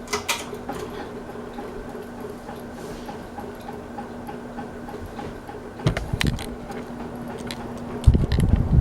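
Hampton Bay Roanoke ceiling fan running with a steady motor hum and a regular light ticking, about three ticks a second, on a fan that wobbles. A few sharp clicks come near the start and about six seconds in, and louder low knocks come near the end.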